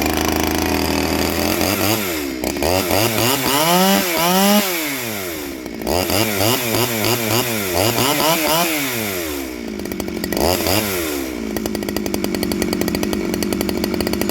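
Two-stroke chainsaw just started from cold, being revved up and down over and over with the throttle, then held at a steady fast idle near the end while it warms up.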